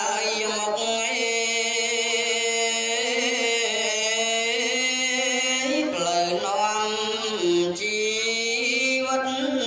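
A Buddhist monk chanting into a microphone: a single male voice sings a melodic Khmer Buddhist chant in long, wavering held notes that step up and down in pitch, amplified through a sound system.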